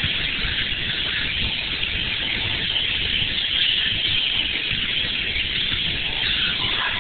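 Range Rover Sport driving through muddy puddles, heard from inside the cabin: a steady rushing hiss of water spraying against the body and windshield over a low engine and tyre rumble.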